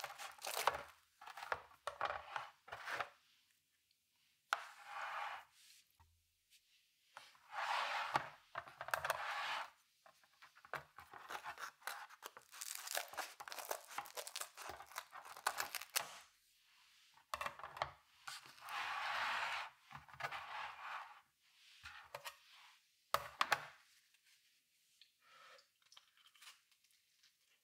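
Kitchen scissors cutting through a crisp baked pizza crust in a series of cuts, some lasting a couple of seconds, with sharp clicks between them; quieter in the last few seconds.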